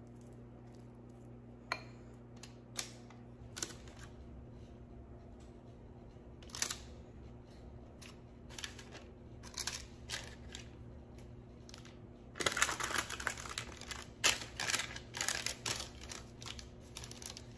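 Kitchen food-prep handling: a few light clicks and taps, then from about twelve seconds in a few seconds of dense rustling and handling noise, over a faint steady hum.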